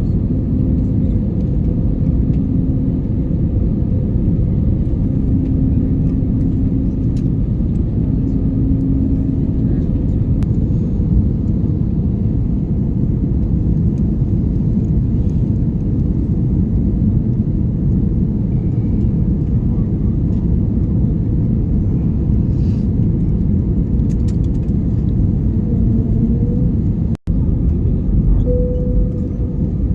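Steady low roar of jet airliner cabin noise, engines and rushing air heard from inside the cabin on approach to landing, with faint humming tones that come and go. The sound cuts out for an instant near the end.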